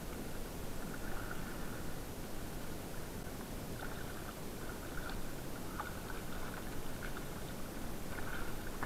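Muffled water sloshing and swirling around a camera held at the water's surface as a released carp swims off, with a few faint splashes.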